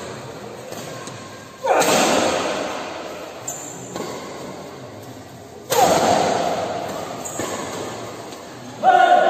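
Spectators shouting in sudden loud bursts during a badminton rally, twice about four seconds apart, each fading away over a couple of seconds. Near the end a third burst of many voices comes in, more like a chant.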